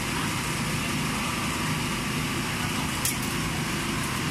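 Steady roar of gas burners under cast-iron pancake pans, over a low, even hum, with one short sharp click about three seconds in.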